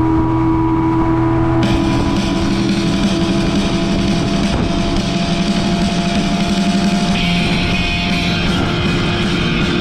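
Rock music with guitar comes in about two seconds in and plays over the steady drone of a running boat motor.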